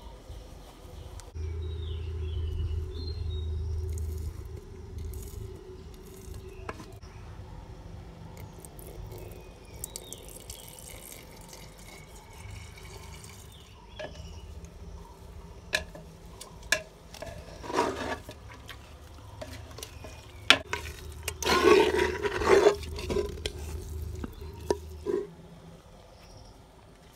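A wooden spoon stirs and sloshes liquid in a clay pot, with scattered light knocks. The stirring grows louder in splashy bursts about two-thirds of the way through.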